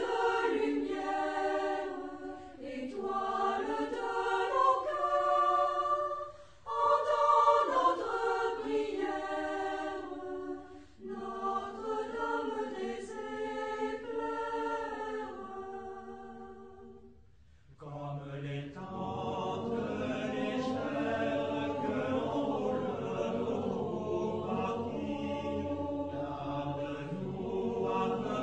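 Choir singing in long phrases with several voices together. The phrases break off about 6 and 11 seconds in and pause briefly about 17 seconds in, and a fuller section with lower voices follows.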